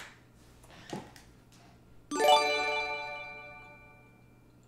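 Livestream alert chime: one bright ding of several tones struck together, about two seconds in, ringing out and fading over about two seconds. A few faint clicks come before it.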